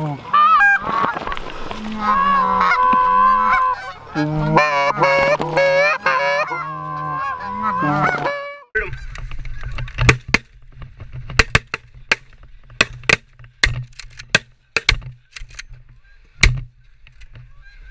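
A flock of Canada geese honking loudly, many calls overlapping, as they fly in. After a sudden cut partway through comes a ragged volley of about a dozen shotgun shots over several seconds, with a low steady rumble behind them.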